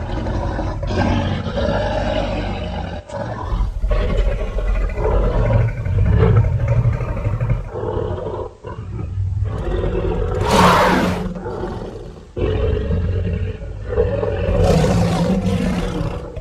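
Movie monster sound effects: a run of deep, growling giant-creature roars with brief breaks, and two higher, shrieking roars about ten and fifteen seconds in.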